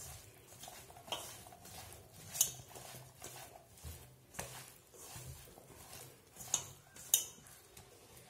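A hand mixing spice-and-flour-coated cauliflower florets in a stainless steel bowl: soft, irregular rustling and squishing of the damp florets. Sharp clinks against the bowl come about a third of the way in and twice near the end.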